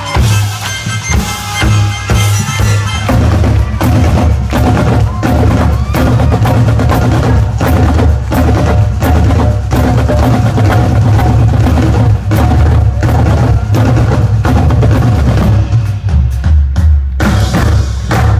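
Marching band drumline playing a fast, steady beat on snare, tenor and bass drums over band music with a heavy bass. The drums take over from the held instrument tones about three seconds in.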